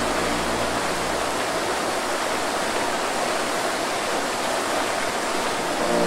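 Steady rush of a waterfall splashing into a pool, an even hiss of falling water. A low music drone fades out under it over the first second or so.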